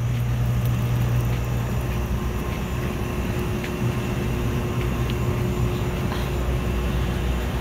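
Steady low hum with a few faint ticks over it.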